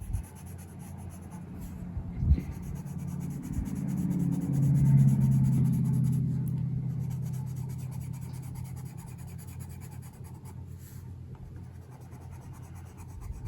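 Watercolor pencil scratching and rubbing on a coloring book page. A low hum swells over a few seconds and fades again about a third of the way in.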